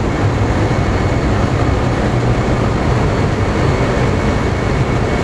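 Merchant ship's engine room noise: diesel engines and machinery running as a loud, steady din with a deep hum underneath.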